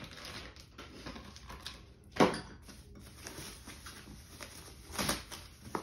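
Hands handling plastic packaging and tools: soft rustling and small knocks, with a sharp clack about two seconds in and another near the end.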